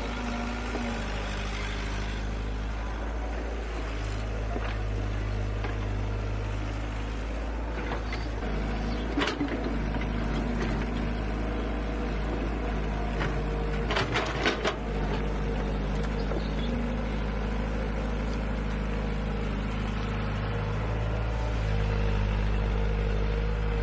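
Heavy machine's engine running steadily, its pitch stepping up and down as it works, with a few sharp knocks about nine and fourteen seconds in.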